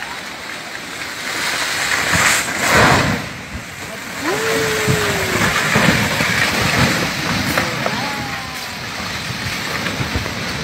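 Landslide of rock and debris making a rushing noise that swells loudest about two to three seconds in, with scattered knocks. A person gives one drawn-out shout about four seconds in.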